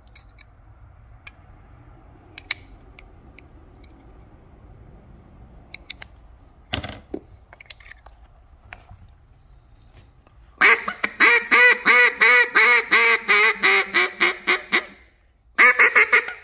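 Single-reed duck call (J-frame) blown in test quacks: a quick run of about sixteen quacks over four seconds, then a short burst of about four more near the end. Before that come only light clicks of the call being handled and put back together. The reed is sticking and still a little hard to blow, which is often a sign of too much reed on the call.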